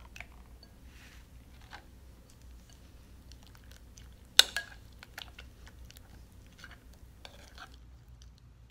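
A metal tablespoon stirring liquid starch into sticky glue slime in a bowl: soft squelches and scattered small clicks, with one sharp knock about four and a half seconds in.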